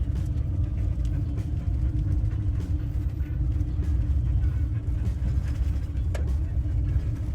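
Van driving down the road, heard from inside the cab: a steady low rumble of engine and tyres with a constant hum, and a single sharp click about six seconds in.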